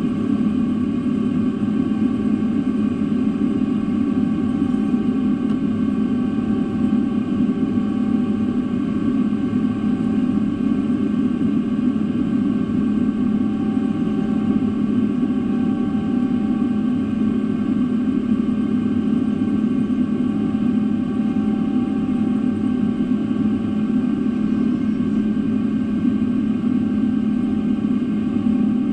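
Boeing 777-300 airliner cabin noise: a steady drone from the jet engines and airflow, with a few steady whining tones above it, unchanging throughout.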